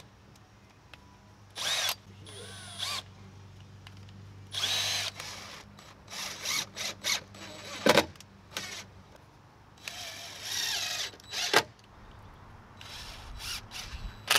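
Cordless drill and impact driver running in short trigger bursts, each spinning up and stopping, drilling oversized pilot holes and driving 1 5/8-inch deck screws through plastic lattice. A couple of sharp clicks fall between the bursts.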